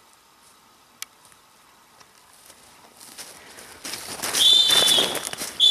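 Two steady high blasts on a dog whistle, the second longer, over a loud rushing noise.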